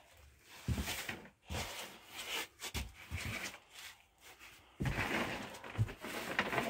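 Irregular knocks, thuds and scuffing of someone moving about and handling things on OSB loft boards. The sounds come in scattered bursts, busier in the second half.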